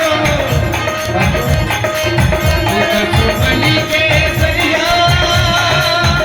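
Bhajan music: a fast, even hand-percussion beat under a sustained melody line.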